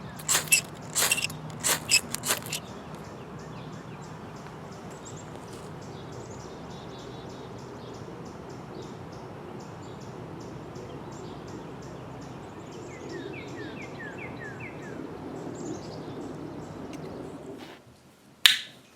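Small saw blade of a Swiss Army Farmer pocket knife cutting wood. Loud crackling strokes come at first, then a long run of quicker, fainter strokes. A bird chirps a few times midway, and a single sharp click sounds near the end.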